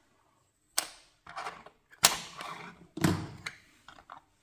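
A flat metal pry spatula and a small brush being set down and handled on a hard tabletop: four sharp clacks about a second apart, each with a short rattle, then two light taps near the end.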